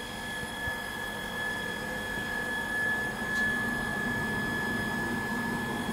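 Liquid loss-in-weight feeder running: a steady machine hum with a thin, constant high whine from its metering pump motor.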